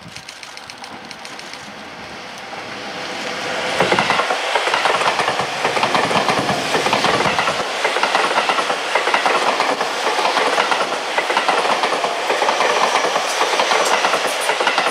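Seibu Ikebukuro Line electric commuter train passing close by. It grows louder over the first few seconds, then its wheels clatter rhythmically over the rail joints as the cars go by.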